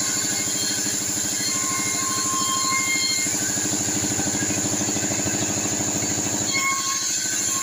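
Band sawmill cutting a sengon log into boards: a steady machine drone with a rapid low pulsing under a constant high whine.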